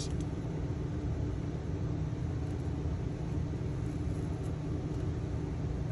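Steady low background hum and rumble of room tone, without any distinct knocks or clicks.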